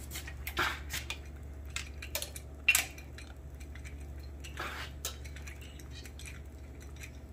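Scattered light metallic clinks as steel cylinder-head nuts and washers are lifted off the studs with a magnetic pickup tool, the loudest about two and a half seconds in, over a steady low hum.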